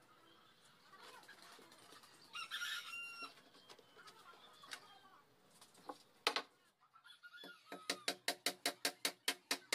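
A rooster crows once, about two and a half seconds in. Near the end a hammer drives a nail into the plywood cabinet panel in a quick run of sharp strikes, about four a second.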